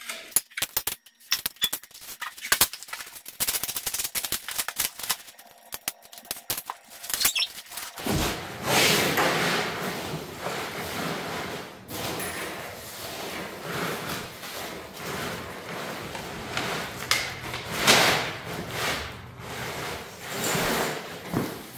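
Handling of the table's metal parts for the first eight seconds or so: a string of sharp taps and clicks. Then a continuous rustle and clatter of foam packing pieces sliding and spilling as a tray packed with them is lifted and tipped out, swelling louder a few times.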